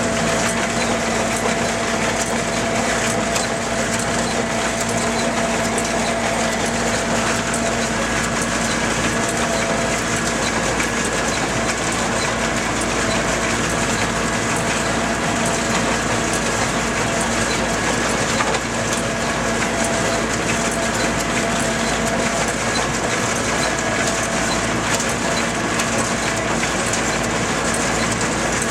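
Tractor diesel engine running steadily under load while a Bamford Super 59 small square baler works, its pickup, plunger and mechanism clattering continuously as it packs hay, with one sharper knock about two-thirds through.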